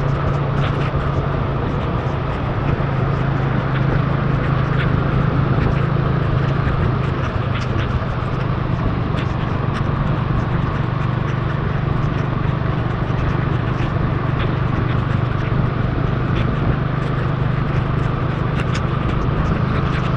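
Motorbike engine running steadily at cruising speed on a wet road, with tyre hiss and wind rush, and scattered ticks of raindrops hitting the camera.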